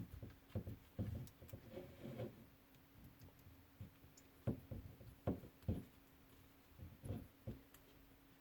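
Faint small metal clicks and taps, about a dozen spaced irregularly, as an Allen key works the screws on a metal lightsaber hilt to clamp the blade in place.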